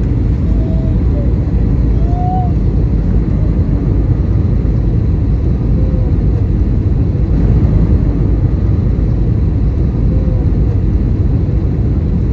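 Steady low roar of engine and airflow noise inside the cabin of an Airbus A320neo airliner on approach to landing, heard from a window seat over the wing.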